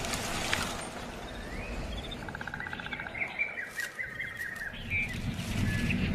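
Birds chirping: a fast trill a little over two seconds in, then a run of short chirps and warbles, over a steady low rumble, with a few sharp clicks.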